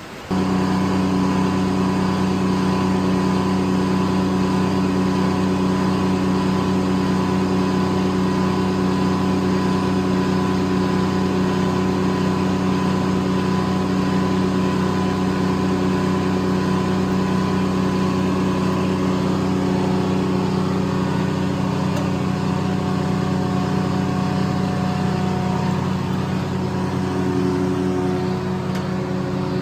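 Corley circle sawmill running at a steady speed, a constant mechanical hum with a fixed pitch that shifts slightly near the end.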